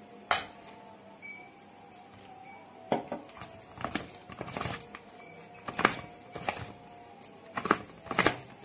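Metal spoon stirring thick cake batter in a stainless steel bowl, knocking and scraping against the bowl's side in irregular strokes, about eight clinks spread across the stretch.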